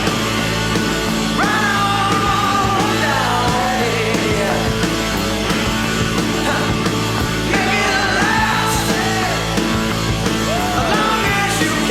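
Hard rock music: a four-piece band with electric guitar, bass and drums playing steadily, with a lead line of sliding, bending notes above it.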